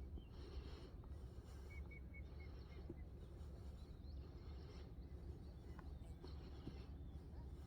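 Faint outdoor ambience: a steady low rumble, with short hissing calls that recur every second or two. About two seconds in there is a quick run of four high bird chirps.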